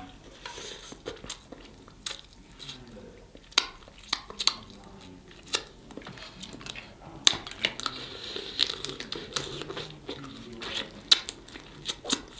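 Snow crab legs being cracked and eaten: sharp, irregular snaps and crackles of shell breaking, with soft chewing between.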